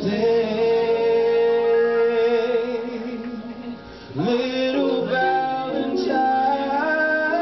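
A male vocalist singing live with a band, holding a long note with vibrato. The note fades about three and a half seconds in, then a new phrase sweeps up in pitch over the band.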